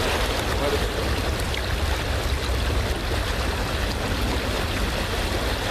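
Steady rushing of running creek water, with a strong low rumble underneath.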